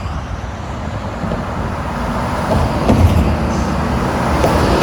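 Road traffic passing close by: tyre and engine noise, with a heavy vehicle's low engine rumble growing louder in the second half. No horn sounds.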